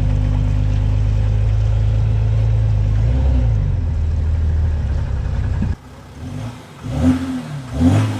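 VW Amarok diesel engine running through a Torqit DPF-back performance exhaust: a steady idle, then, after a sudden drop about six seconds in, several quick throttle blips that rise and fall in pitch.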